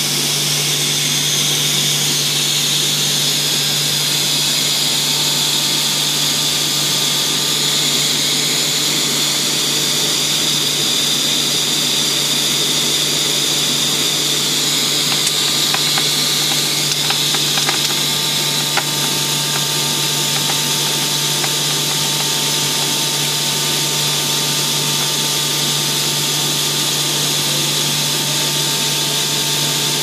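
Steady running noise of a cable extrusion line: a constant motor hum under a strong high hiss. A few light clicks come in the middle, and a faint steady tone joins past halfway.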